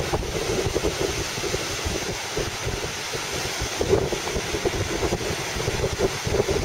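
Strong wind rumbling on the microphone, with small lake waves washing onto the sandy shore underneath.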